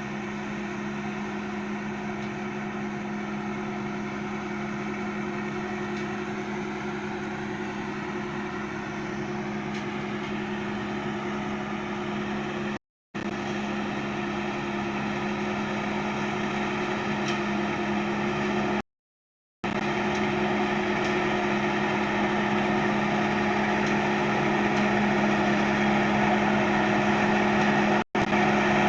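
Thai Seng combine harvester's five-cylinder turbo diesel engine running steadily, a constant drone that grows gradually louder and drops out in a few brief silent gaps.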